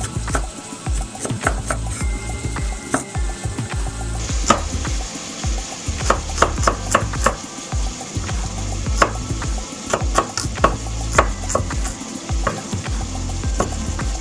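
A cleaver chopping spring onions on a wooden cutting board: irregular knocks of the blade on the board, a few a second. Food sizzles in a frying pan underneath.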